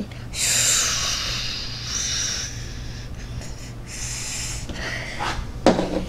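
A child's mouth-made "psssh" hiss imitating whipped cream spraying from a can, held for about two seconds and then trailing off into a thinner, fainter hiss for about two more.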